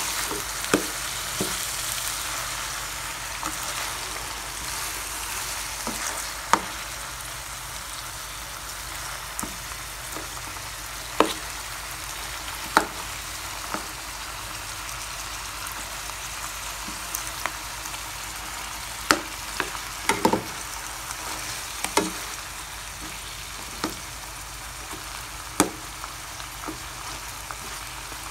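Diced pork and onions sizzling steadily in hot oil in a pan, browning while being stirred with a plastic slotted spatula. About a dozen sharp clicks and knocks, scattered and irregular, come from the spatula against the pan.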